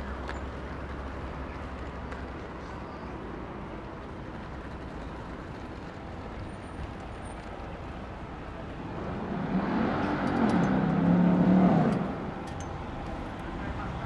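Street ambience with a motor vehicle passing close by: its engine swells for about three seconds, two-thirds of the way in, then drops away quickly.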